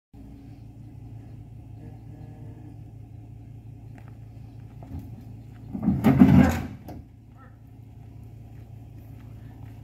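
Vehicle engine idling steadily, with one loud, harsh burst of noise about six seconds in that lasts about a second.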